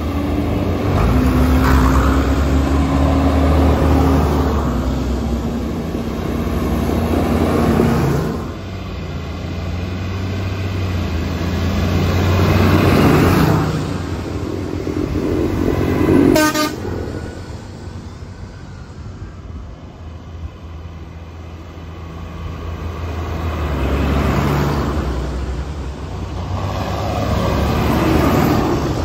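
A procession of diesel farm tractors driving past one after another, including a green John Deere near the end, the engine noise swelling and fading with each pass. A vehicle horn toots.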